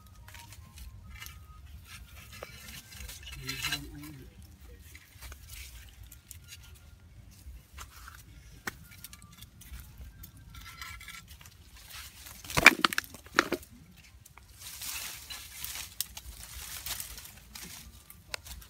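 Scattered small clicks and handling noises on dry ground. A sharp knock about two-thirds of the way through is the loudest sound. Near the end, leaves and twigs rustle as leafy branches are pulled about.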